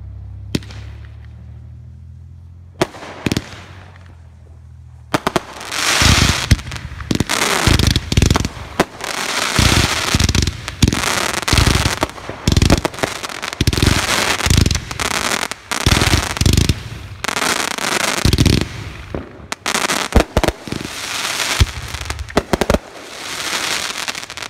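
Fireworks going off. A few single pops come first, then about five seconds in a dense barrage of launches and bangs over continuous crackling starts, and it runs almost to the end before stopping suddenly.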